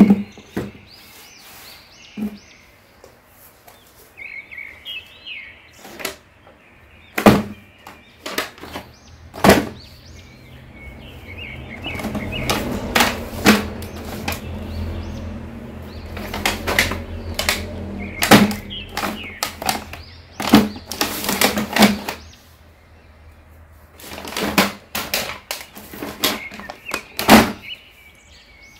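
Cardboard toy boxes and plastic-packaged action figures being handled and set down: irregular sharp knocks and clicks. Faint high chirps come in the first few seconds, and a low hum runs through the middle.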